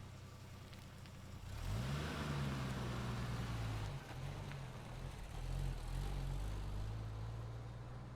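SUV engine idling, then picking up revs about a second and a half in as the vehicle moves off, with a haze of tyre noise. The engine pitch rises and dips a few times, then settles into a steadier, lower tone that fades near the end.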